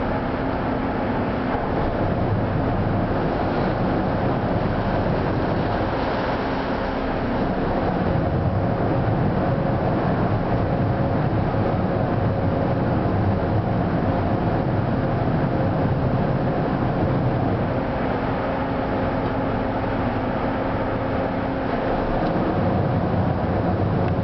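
A boat's engine running steadily, a continuous low hum with a faint steady tone over a wash of noise.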